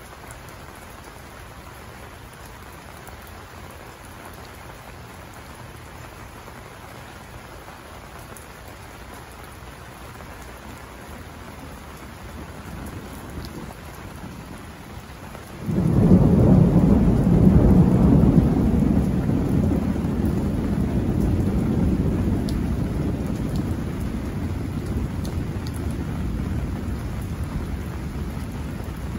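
Steady rain falling throughout. A low rumble of thunder builds, then about sixteen seconds in a sudden loud thunderclap breaks into a long rumble that slowly dies away.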